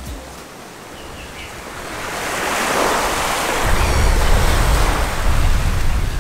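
Rough seas rushing and breaking around a sailboat under sail in about 40 knots of wind, swelling over the first few seconds. From a little past halfway, heavy wind buffets the microphone with a deep rumble.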